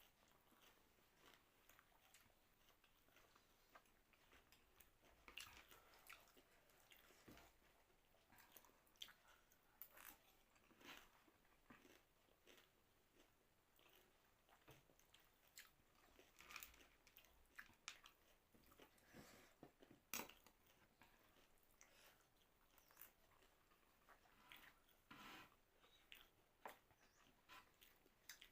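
Faint eating sounds: a person chewing and biting food, with scattered soft crunches and clicks.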